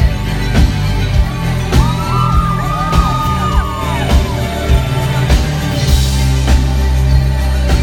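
Live band playing loudly: electric guitar, bass and a steady drumbeat, with audience members whooping over the music about two seconds in.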